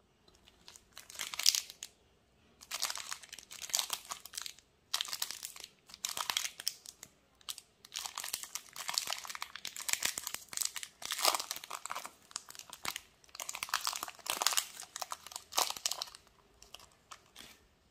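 Metallised plastic wrapper of a Cadbury 5 Star chocolate bar being crinkled and torn open by hand, crackling in repeated bursts with short pauses between them.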